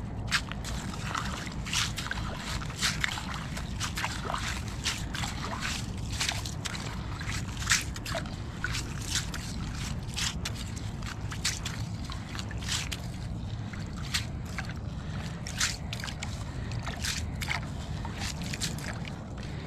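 Handling at an ice-fishing hole while a tip-up rig is set: water and slush sloshing, with many irregular sharp clicks and crackles over a low steady rumble.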